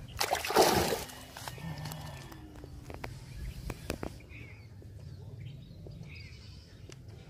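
Fish being handled in water and among leaves, a splashy rustle that is loudest in the first second, then a few sharp knocks a few seconds in as fish are put into a steel bowl.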